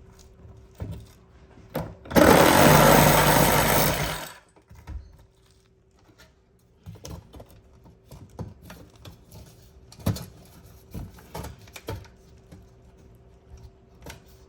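A power tool runs in one loud burst of about two seconds, a little after the start. Scattered light clicks and knocks of handling follow.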